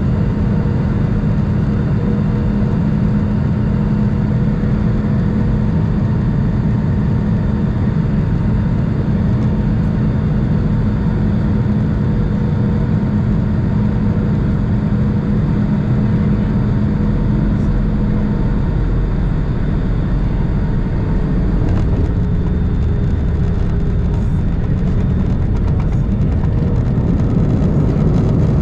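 Cabin noise of an Airbus A220 landing, heard beside the wing: a steady engine and airflow roar with a hum that drops away about two-thirds of the way through as thrust comes back. Knocks and rattles follow as the wheels meet the runway, and the noise swells near the end as the jet rolls out with spoilers up.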